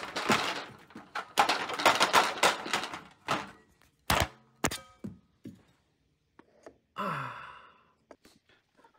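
Spring-steel 3D-printer build plate handled and flexed to pop printed plastic brackets off: a dense rattle and rustle, then a few separate sharp clicks and knocks, one with a brief metallic ring.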